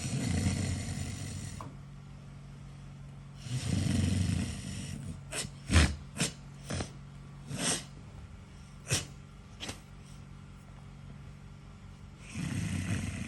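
A man snoring: three long, rough snores, one at the start, one about three and a half seconds in and one near the end, with a run of short, sharp noises in between.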